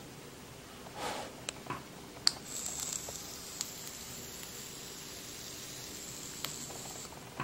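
Faint sizzling hiss of e-liquid burning off the fresh coil of a rebuildable dripping atomizer, done to clear the chemical taste. Scattered with a few small sharp clicks; the loudest comes about two seconds in.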